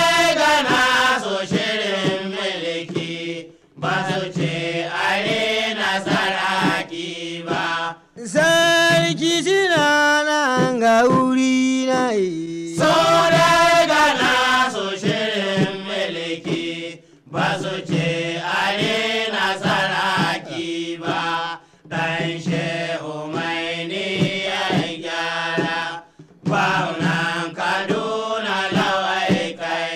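Hausa praise song: chanted singing in long, gliding phrases, broken by short pauses every few seconds, over a steady low accompaniment.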